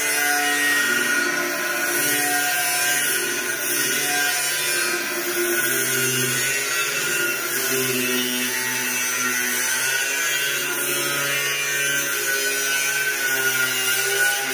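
Angle grinder with a cut-off disc cutting through a long metal channel, running continuously with a high hiss and a motor whine whose pitch wavers as the disc bites into the metal.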